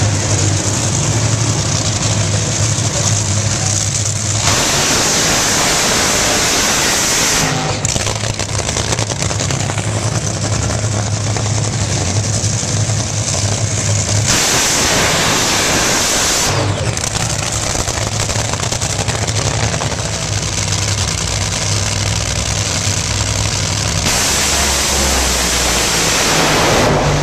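Drag-racing engines running very loud at the starting line, a dense, harsh noise with a low steady drone beneath. The noise rises to full throttle three times, the last a few seconds before the end as a pair of cars launches down the track.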